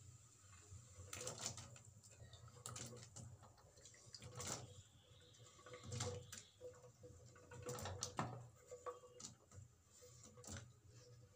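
Cauliflower florets being pushed off a wooden chopping board into a pan of hot water: irregular soft plops and knocks from the florets and the board against the pan, over a faint steady hum.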